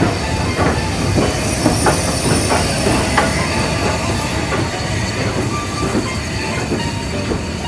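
Southern Railway Schools-class steam locomotive No. 30925 and its coaches rolling slowly past along the platform. The wheels click over the rail joints and squeal on the rails, with the clicks thickest in the first three seconds.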